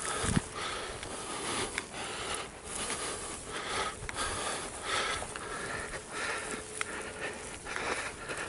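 Footsteps swishing through dry grass with the heavy breathing of a person walking briskly, in an irregular rhythm of soft rustles and breaths.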